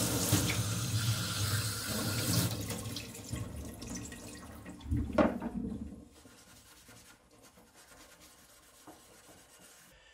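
Kitchen tap running, water splashing over a knife blade and hand into a stainless-steel sink; the water stops about six seconds in, leaving only faint handling sounds.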